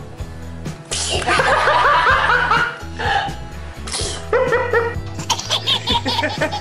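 Laughter in two loud bouts over steady background music, then a baby's rapid giggling near the end.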